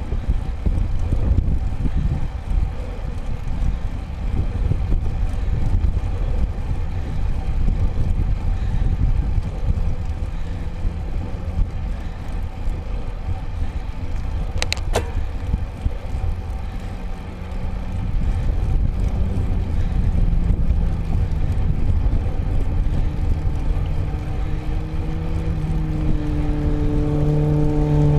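Wind buffeting the microphone of a handlebar-mounted camera on a moving road bike, a steady low rumble, with one sharp click about halfway through. In the last third an engine hum rises in level and a little in pitch as a motor vehicle comes closer.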